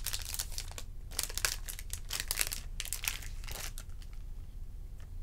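Crinkling and rustling as trading cards and their plastic pack wrapping are handled, in irregular bursts that thin out about three and a half seconds in.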